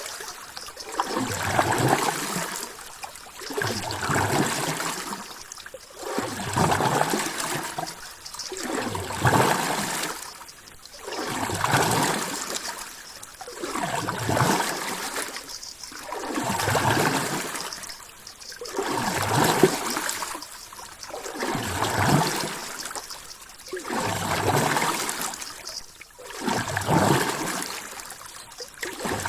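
Ocean water sound swelling and fading in an even rhythm, about once every two and a half seconds.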